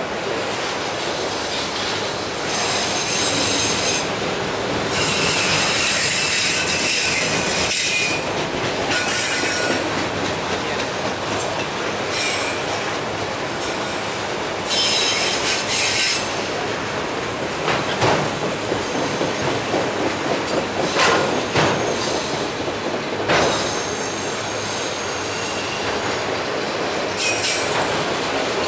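Autorack freight cars rolling past with a steady rumble and rattle. High-pitched wheel squeal comes and goes, and sharp clacks of wheels over the rails come in the second half.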